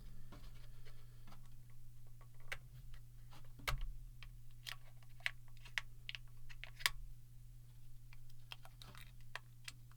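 Irregular small clicks and taps of plastic parts as an opened ink cartridge is handled and worked over a disposable loaf pan, the sharpest a little before four seconds and near seven seconds in.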